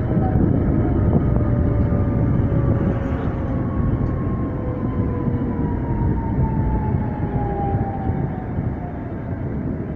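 Electric tram running along the track, heard from inside near the front: a steady rumble with a thin whine that falls slowly in pitch.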